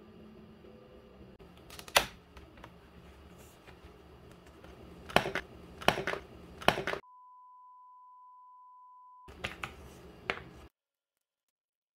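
Sharp plastic clicks and taps from a clear blister pack of teardrop ink pads being handled and opened and the pads set down on a table, loudest about two seconds in and again around five to seven seconds. Then a steady beep replaces all other sound for about two seconds, a few more clicks follow, and the sound cuts off to dead silence.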